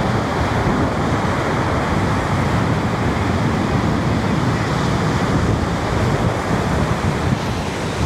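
Sea surf washing steadily onto a shallow sandy beach, with wind rumbling on the microphone.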